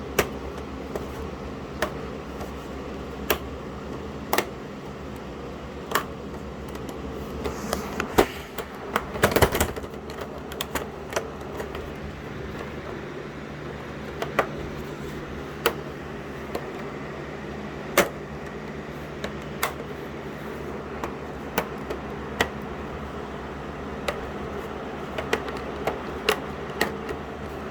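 Scattered sharp clicks and taps of small parts and tools being handled while fitting an SSD into an all-in-one desktop PC, with a louder burst of scraping and rattling about nine seconds in, over a steady low hum.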